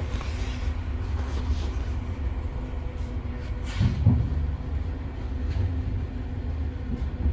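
Passenger train heard from inside the carriage: a steady low running rumble with a faint hum, and a brief louder noise about four seconds in.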